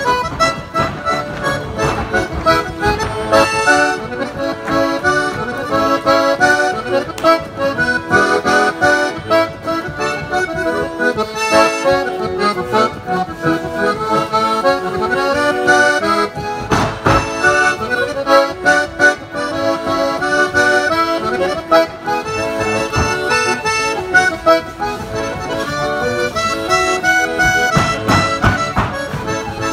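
Traditional folk dance tune played on accordion, with quick, evenly paced notes throughout.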